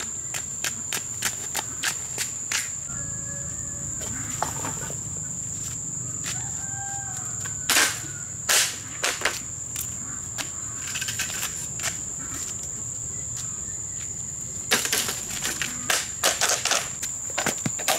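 Steady high-pitched insect drone, with light footsteps in sandals on a dirt road over the first couple of seconds. A few sharp knocks come around the middle, and a flurry of knocks and rustling near the end.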